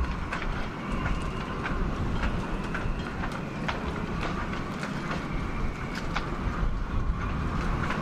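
Wind through a crowded marina, with halyards and rigging clinking irregularly against masts over a low wind rumble.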